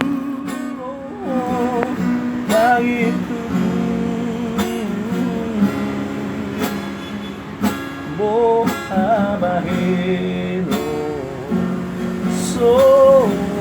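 Music: an acoustic guitar strummed steadily, with a voice singing in a few phrases over it.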